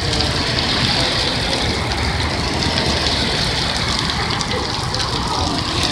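Steady hiss of rain and tyres on a wet street, with vehicles driving past on the wet road.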